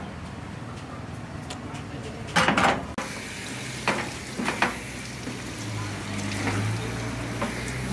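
Restaurant kitchen noise: a loud burst of clattering about two and a half seconds in, then a few sharp knocks, over a steady background hiss.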